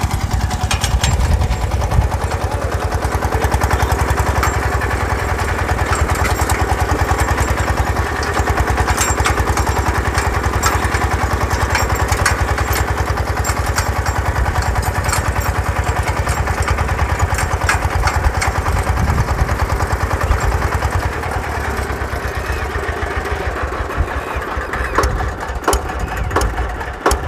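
Sanedo mini tractor's engine running steadily with a rapid chugging beat as it pulls a weeding bar between crop rows. It turns a little quieter about three-quarters of the way through.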